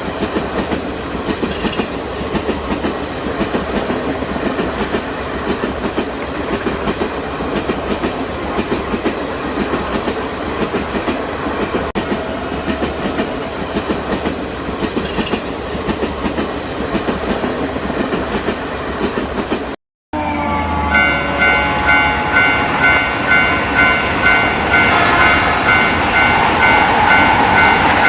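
A train passing, with a steady clatter of wheels over the rails. About twenty seconds in, the sound drops out for a moment, then a railroad crossing alarm bell rings in a steady rhythm over continuing train noise.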